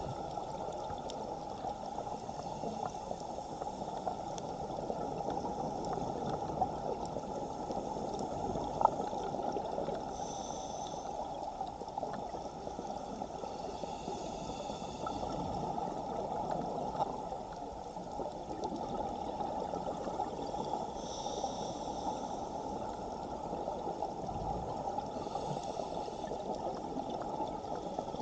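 Underwater sound through a camera housing: a steady muffled rush of strong current, with a scuba diver's regulator breaths as hissing surges every four to five seconds. A single sharp click about nine seconds in.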